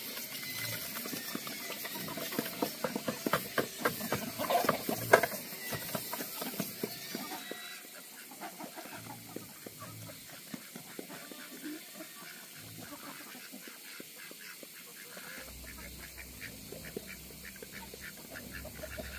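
Wet chopped greens splatting from a bucket into a tyre trough, then a sow chomping and slurping the mash in quick irregular smacks. The smacks are loudest in the first few seconds and softer after that.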